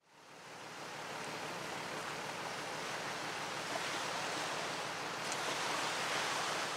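Small waves washing against a shoreline, heard as a steady, even rush that fades in from silence at the start.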